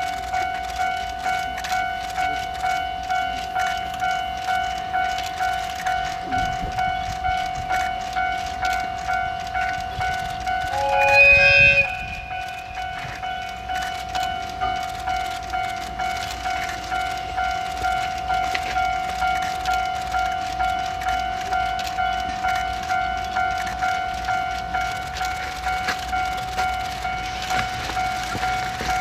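Railway level-crossing alarm ringing, a steady electronic ding repeating about once a second. A train horn sounds once, for about a second, a little before the middle.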